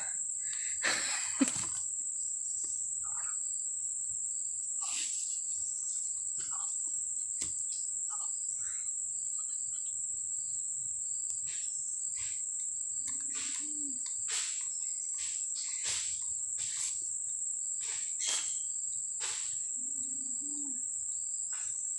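Insects calling with one steady, high-pitched, unbroken shrill tone, and a fainter broken tone below it. Scattered short clicks and rustles come and go throughout.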